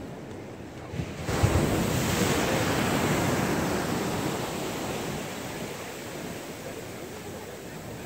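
Ocean surf: a wave breaks and rushes in about a second in, then its wash slowly fades back to a steady background of surf.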